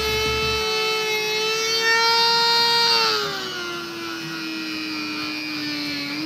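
Corded high-speed rotary tool whining steadily as its bit grinds into a hole in a steel gate frame. Its pitch sinks about three seconds in as the bit bears into the metal, and climbs again right at the end.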